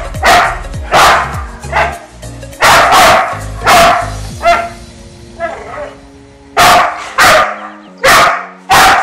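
Boxer dog barking again and again in short, loud barks, about a dozen in all, several coming in quick pairs.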